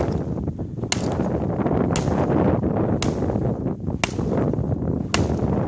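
Fiskars brush axe chopping into a cold, frozen downed log: five sharp blade strikes, about one a second, over steady low noise.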